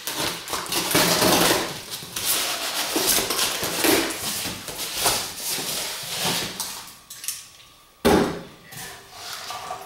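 Cardboard shipping box being torn open: packing tape ripped and cardboard flaps pulled back, rustling and scraping, then a sharp knock about eight seconds in.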